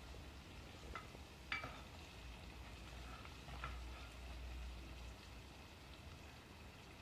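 Steel ladle stirring a thick masala paste that is frying in oil in an aluminium pot, with a faint sizzle. A few light clicks and scrapes of the ladle against the pot, at about one and a half seconds and again around three and a half seconds.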